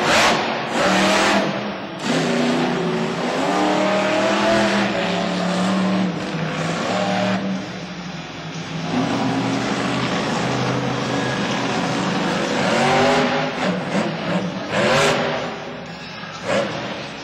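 Monster truck's supercharged V8 engine revving hard and easing off several times as the truck drives and jumps on dirt, with a strong rise near the end.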